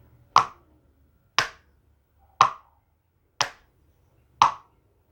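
Two plastic aerosol-can caps struck in a slow, even beat of five hollow clops, about one a second, imitating a horse's hooves at a walk.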